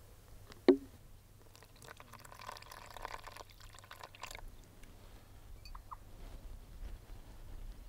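Liquid poured from a cup into a well of flour, running and dribbling for about three seconds. A single sharp click comes shortly before the pour.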